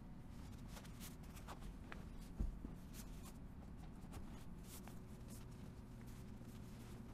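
Faint rustling and scraping of a PU leather upholstery cover being pulled and smoothed over a PU foam sofa body by gloved hands, with scattered small clicks and a single thump about two and a half seconds in.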